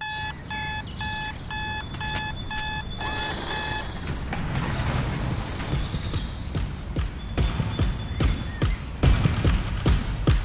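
Electronic alarm clock beeping, a short repeated tone about twice a second, which stops about four seconds in. A low swell follows, growing into music with a heavy beat that gets louder near the end.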